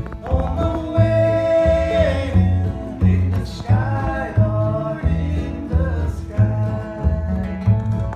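Bluegrass band playing live: acoustic guitar and a lap-style resonator guitar (dobro) with sliding, held notes, over a bass alternating two notes about twice a second, with a singing voice.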